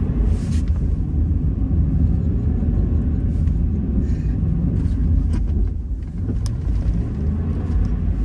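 Pickup truck rumbling low as it drives, heard from inside the cab, with a couple of brief knocks. It is in four-wheel drive, pulling a trailer whose wheel has slipped off the road edge.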